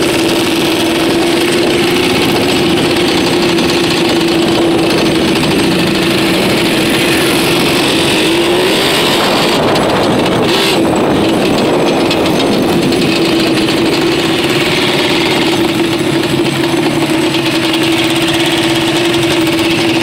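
ATV engines running, a steady drone with a brief rise in pitch about eight to nine seconds in.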